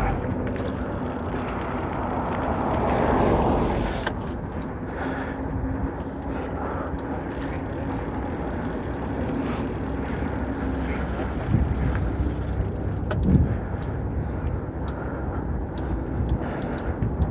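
A mountain bike riding at speed: a steady rush of wind and tyre noise with a faint hum through the middle, and scattered clicks and rattles from the bike over rough ground.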